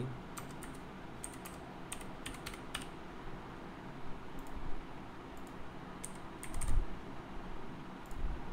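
Computer keyboard typing in short runs of keystrokes, mixed with mouse clicks. A dull thump about two-thirds of the way through is the loudest sound.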